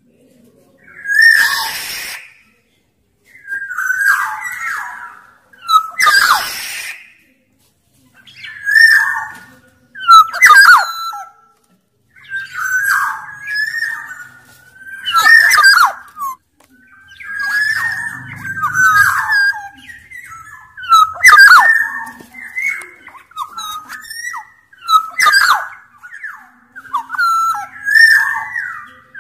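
Sumbawa black-naped oriole (kepodang) calling in full voice: a quick series of short fluty whistled phrases about every two seconds, several with a harsh rasp.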